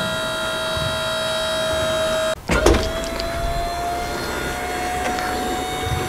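Electric hydraulic pump of an RV's Lippert Level Up leveling system whining steadily as the slide-outs and jacks are cycled to work fresh anti-stiction fluid through the system. The whine breaks off abruptly a little over two seconds in and resumes, slowly rising in pitch.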